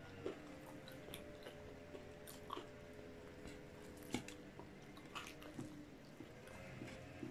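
Crispy breaded fried chicken being pulled apart by hand and chewed: scattered sharp crackles of the coating, over a faint steady hum.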